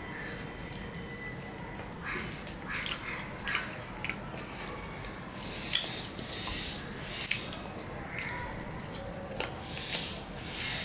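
Eating rice and fish curry by hand from a stainless steel plate: wet squishing as fingers mix the rice, with chewing and a few sharp clicks, the loudest a little past halfway.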